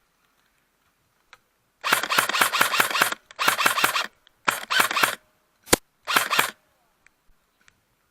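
Airsoft electric rifle firing on full auto: four rapid bursts of shots and one single shot between them, the bursts about half a second to a second long.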